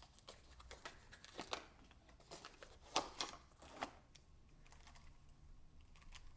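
Faint scattered clicks and rustles of a plastic Gear Cube puzzle being handled, with the sharpest clicks about three seconds in, fading out after about four seconds.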